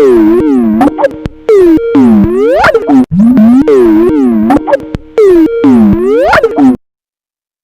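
Skype ringtone playing very loud and warped, its electronic notes swooping up and down in pitch over and over. It cuts off near the end into a short silence between rings.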